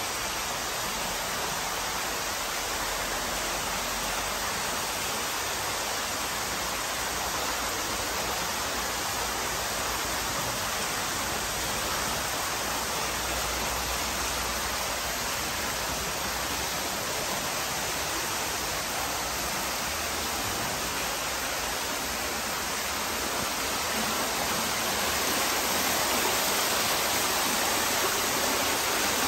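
Water running and splashing steadily down the rocks of an indoor holy-water fountain, the spring that is called miraculous. It grows a little louder near the end.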